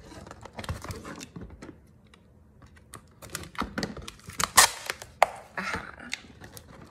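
Stiff packaging boards handled and opened by hand: scattered clicks, taps and short rustles as the boards slide and a flap is lifted, with the sharpest clicks about four and a half and five seconds in.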